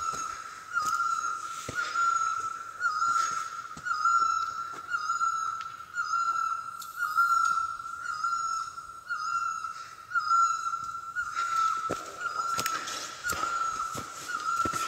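Forest birds calling: a short whistled note repeats about once a second, with higher, thinner chirps alongside it for much of the time.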